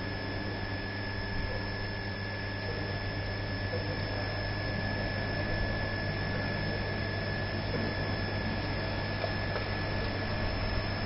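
A 16 kW induction heater heating a steel truck frame rail: a steady electrical hum with a thin, high, steady tone over it.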